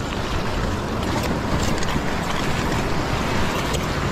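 Ocean swell surging and washing over a rock ledge, a steady rush of foaming water, with low wind rumble on the microphone.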